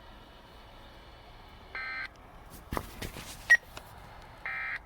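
Two short, buzzy electronic beeps from a weather radio broadcast, about two and a half seconds apart. Between them come a cluster of clicks and a sharp knock, the loudest sound.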